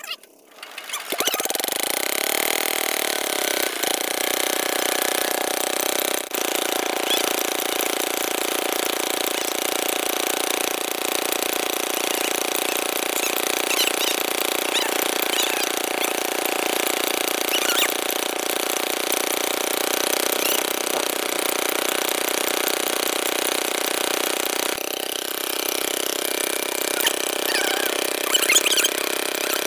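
An engine comes in about a second in and then runs steadily.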